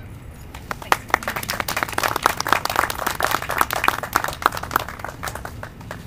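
Small crowd applauding, starting about a second in, building quickly, and dying away near the end.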